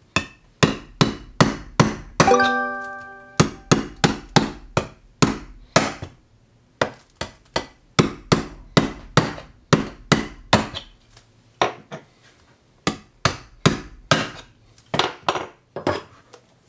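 Needle-nose pliers stabbed point-first into the steel lid of a food tin can, punching holes: sharp metallic jabs about three a second, with a few short pauses. About two seconds in, one jab leaves a metallic ring that lasts about a second.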